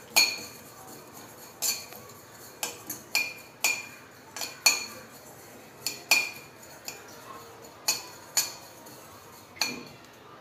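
Steel spoon clinking and scraping against a stainless steel kadai while stirring black sesame seeds that are dry-roasting. There are about fourteen sharp metallic strikes at an irregular pace of one or two a second, each ringing briefly.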